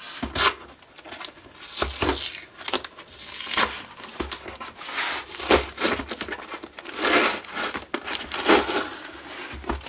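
Brown packing tape being peeled and torn off a cardboard box in irregular ripping strokes, with the torn tape crinkling as it is crumpled.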